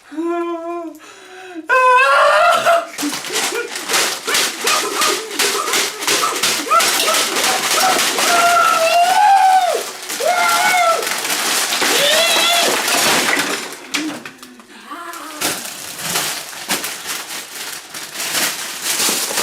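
High-pitched voice squealing in short cries that rise and fall, over a dense, continuous crackle of plastic candy wrappers being handled, with a brief lull in the crackle about three-quarters of the way through.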